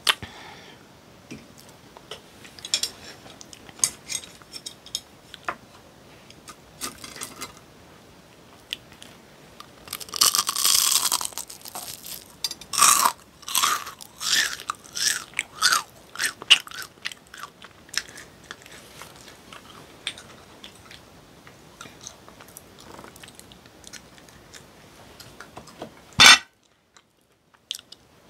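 Close-miked crunching and chewing of crisp, crumb-coated fried chicken snack pieces: scattered small mouth clicks at first, then a dense run of loud, crisp crunches about ten seconds in, easing into quieter chewing. One sharp click near the end is followed by a moment of dead silence.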